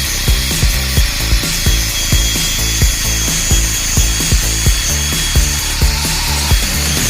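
Background music with a steady beat over the steady high whine of an angle grinder with a cutting disc cutting into a metal tube.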